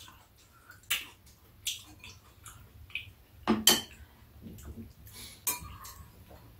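Metal spoons clinking against ceramic bowls and a metal tray while eating: a handful of scattered sharp clinks, the loudest about three and a half seconds in.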